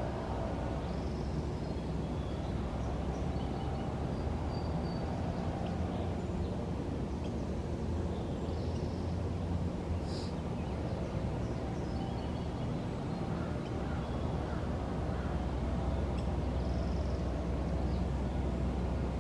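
Outdoor ambience: a steady low rumble like distant engine or traffic noise, with faint short bird chirps now and then and one brief sharp click about halfway through.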